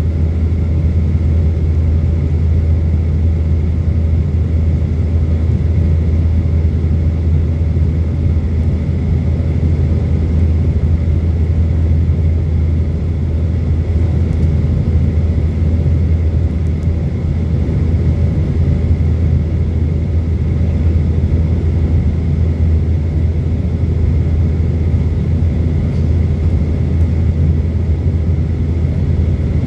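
Boeing jet airliner's engines and airflow heard from inside the cabin: a steady low rumble, with a faint high steady whine.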